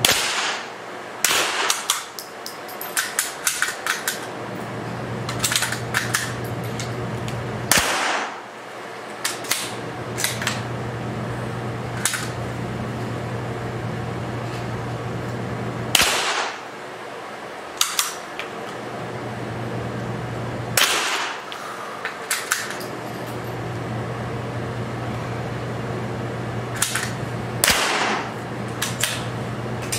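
Rifle shots on a small indoor range: five loud reports several seconds apart, each with a short echo off the walls. Between the shots come groups of light metallic clicks from the bolts of bolt-action rifles being worked, over a steady low hum.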